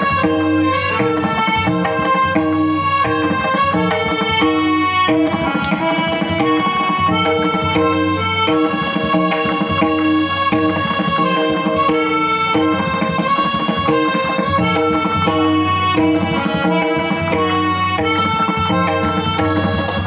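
Harmonium playing a melody of held, stepping notes, accompanied by tabla drum strokes: an instrumental passage of Indian traditional music.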